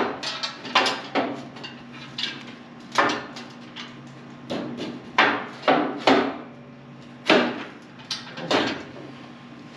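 Expanded-metal mesh guard panel clanking and rattling against the pump unit's steel frame as it is fitted back into place: a string of irregular sharp knocks, some close together.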